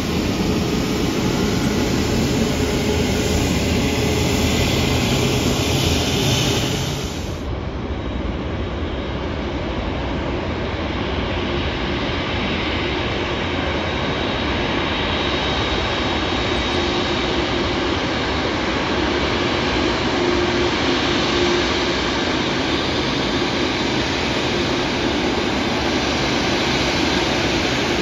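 Jet airliners taxiing with their turbofans at idle. First a Thai Airways Airbus A350 rolls past. After a cut about seven seconds in, a UPS Boeing 747 freighter's four engines run with a steady hum and a faint high whine.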